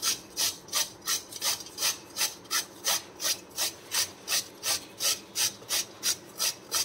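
Peeled raw sweet potato being grated on a steel hand grater, a rasping scrape about three times a second, which stops suddenly at the end.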